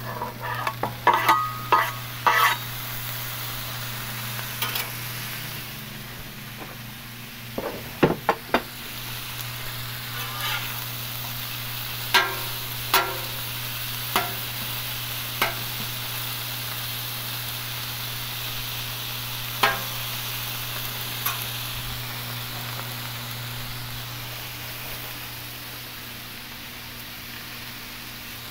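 Sliced New York strip steak sizzling on a hot oiled flat-top griddle, with sharp taps and scrapes of a metal spatula as the meat goes onto the griddle and is worked. There is a few clicks at the start, a cluster about eight seconds in, and a run of taps about a second apart a little past halfway.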